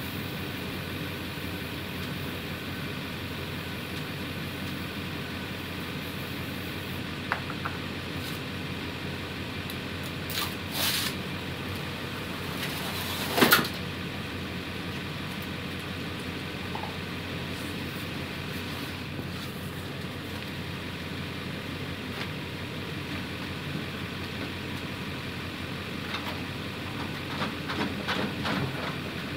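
A steady mechanical hum with a few scattered knocks, the loudest a sharp knock about halfway through. Near the end, a rubber tire is set down onto the rim on the tire changer, making a run of soft thuds and rubbing.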